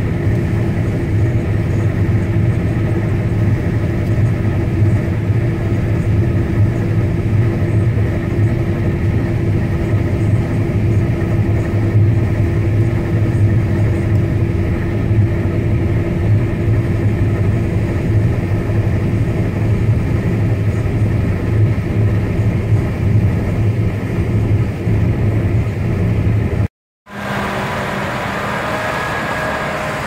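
Claas Lexion 770 combine harvester heard from inside its cab while cutting and unloading grain: a steady engine and machinery drone with a low hum. Near the end the sound drops out for a moment and gives way to the combine working in the field, heard from outside.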